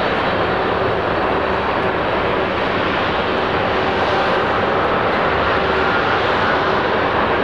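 Boeing 787-10 Dreamliner's twin turbofan engines at takeoff thrust during the takeoff roll: a loud, steady jet roar with a faint steady whine riding on it.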